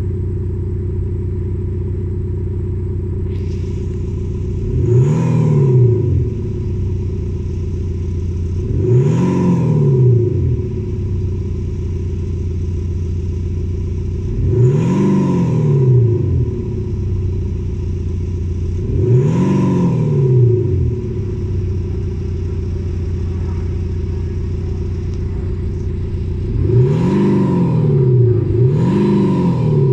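Porsche Panamera diesel fitted with a Maxhaust Active Sound Booster, its speaker-made sporty exhaust note idling steadily and revved in six short blips. Each blip rises and falls over a second or so, and the last two come close together near the end.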